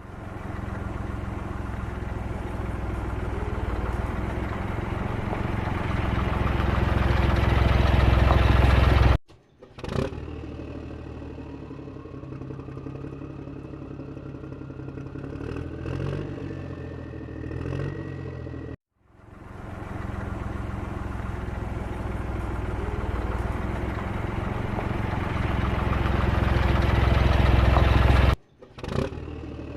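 Vehicle engine running and building up for about nine seconds, then cut off suddenly. A quieter stretch follows with a slowly rising whine, then the louder engine stretch comes back and cuts off again near the end.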